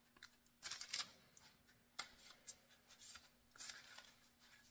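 Faint rustling of parchment paper and pie dough under the hands as the crust edges are folded up over the blueberry filling, in a few short bursts.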